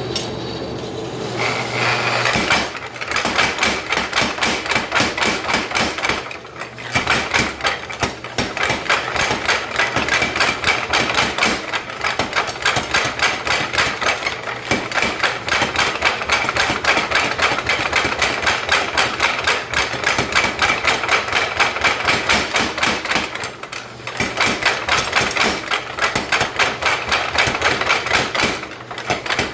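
Mechanical power hammer striking hot steel through a flatter in fast, even runs of blows, starting about two seconds in and pausing briefly twice. A gas forge burner runs steadily underneath.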